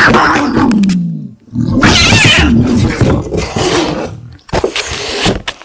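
Agitated domestic cat yowling and growling defensively: a long drawn-out yowl falling in pitch that ends about a second in, a second long yowl from about two to four seconds in, and shorter cries near the end.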